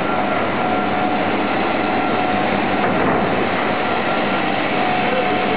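PVC pipe extrusion line running: a steady mechanical din with a faint, even whine.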